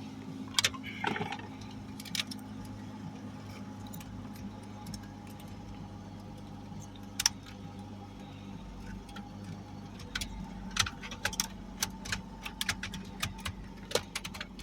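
A steady low hum with scattered sharp clicks and light metallic rattles over it; the clicks come more often in the last few seconds.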